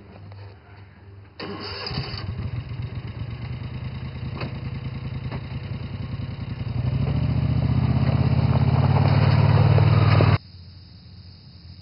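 Small utility vehicle's engine starting about a second and a half in, then running with a rapid, even throb that grows louder over the last few seconds before cutting off suddenly.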